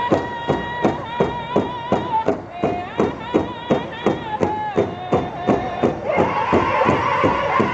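Powwow drum group singing over a large shared powwow drum struck in a steady, fast beat, about four strokes a second. High voices hold long notes that step down in pitch, then about six seconds in the whole group comes in louder and fuller.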